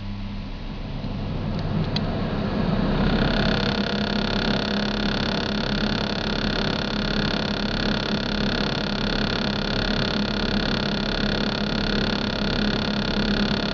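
Samsung refrigerator making a steady mechanical hum with a rough, buzzing low end; about three seconds in, several steady high-pitched whining tones join in and hold. This is the unwanted noise the fridge is making.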